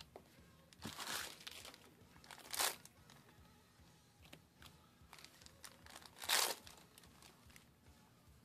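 Trading-card booster pack wrappers crinkling as packs are handled and cards are sorted, with three louder bursts of crinkling: a longer one about a second in, a short sharp one a little later, and another about six seconds in.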